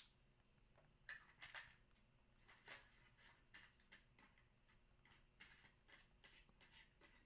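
Near silence with faint scattered rustles and clicks of trading-card packs and cards being handled, a few a little louder about a second in and near three seconds in.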